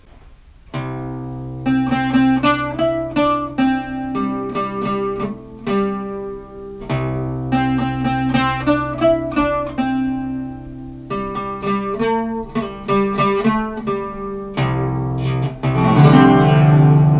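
Nylon-strung fretless oud being plucked: a run of single picked notes over low strings left ringing, with a brief spell of rapid repeated strokes near the end.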